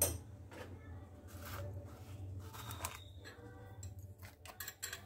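Kitchen handling sounds: a sharp clink or knock, then scraping and rustling, and a quick run of small clicks near the end, over a low steady hum.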